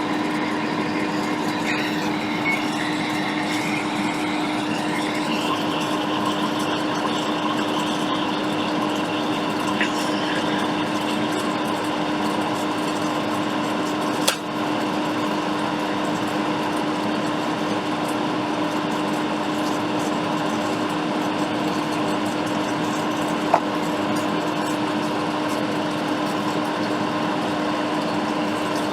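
Hot air rework station blowing steadily while reflowing components on a logic board: an even rushing fan noise with a constant low hum. Two small clicks, one about halfway through and one near the end.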